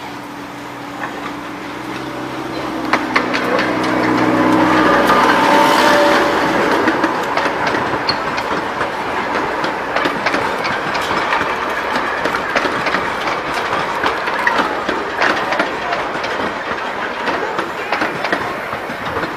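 Miniature railway locomotive's diesel engine running as it draws close and passes, loudest about five or six seconds in. Then its train of carriages rolls past with a continual clickety-clack of wheels over the rail joints.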